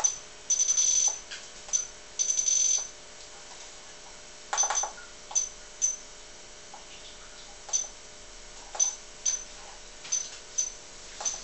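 Key beeps from a Critical CX2-G2 tattoo power supply as its buttons are pressed: two longer high beeps in the first three seconds, then a dozen or so short ones at irregular intervals.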